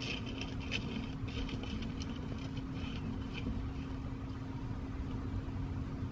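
Light clicks and scrapes of charcoal briquettes being shifted by hand in a metal grill bowl during the first few seconds, over a steady low engine-like hum.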